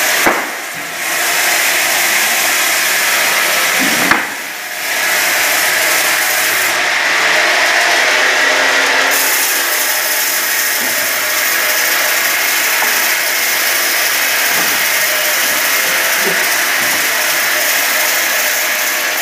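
Multi-blade rip saw running, a steady loud whine of the spinning blades and feed belt. It dips briefly twice in the first five seconds, each time after a sharp click.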